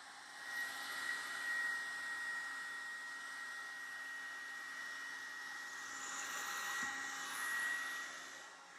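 Revlon One-Step hair dryer brush running steadily, a blowing hiss with a thin high whine, as it is worked through a section of curly hair. It gets louder about half a second in and drops back just before the end.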